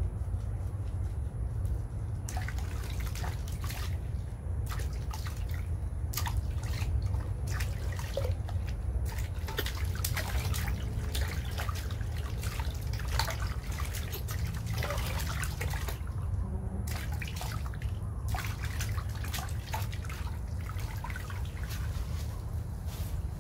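Water splashing and dripping in a metal basin as a baby monkey is washed by hand, many small irregular splashes and drips, with a steady low rumble underneath.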